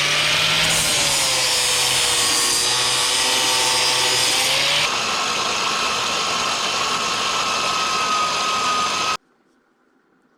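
Electric power tool running under load in a metal-working shop, with a steady motor pitch that sags slightly partway through. The sound changes about halfway through, then cuts off suddenly near the end.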